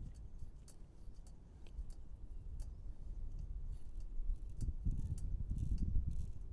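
Wind buffeting the microphone in an uneven low rumble that grows stronger about halfway through, with scattered light clicks and clinks over it.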